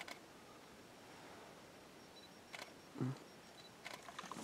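Quiet background broken by a few faint sharp clicks and one low thump about three seconds in.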